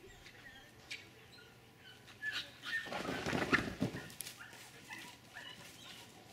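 Staffordshire bull terrier dashing through a fabric agility tunnel: a brief loud rustling, flapping scuffle about three seconds in. Faint bird chirps in the background.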